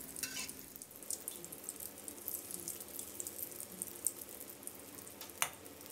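Thai egg-omelette fritters deep-frying in a wok of hot oil: a steady sizzle full of small crackles, with one sharper click near the end from the metal spatula.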